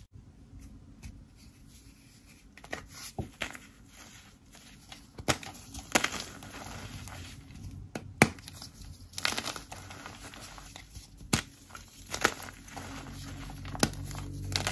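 A block of gym chalk coated in orange Holi powder being squeezed and crushed by hand, breaking with sharp, irregular crunches and crumbling in between.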